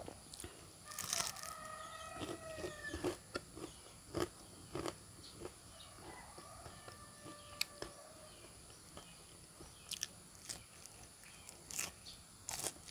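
Crunching and chewing of fried banana fritters (pisang goreng) being eaten, with a sharp crunch every second or so. A rooster crows faintly in the background about a second in, and again more faintly around six seconds in.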